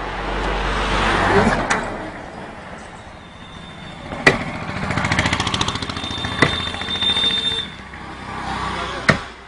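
Street traffic: motor vehicles passing, one swelling and fading in the first two seconds and another with a rapid pulsing engine beat about halfway through, with a few sharp knocks in between.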